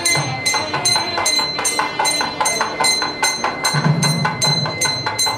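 Temple hand bell rung steadily, about two to three strokes a second, its metallic ringing carrying on between strokes.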